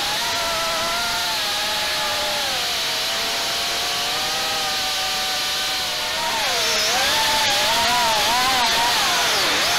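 Brushless motors and propellers of a 3-inch Diatone Rabbit GT R349 FPV quadcopter whining in flight, picked up by its onboard camera. The pitch holds fairly steady for about six seconds, then swoops down and up several times and gets louder as the throttle changes.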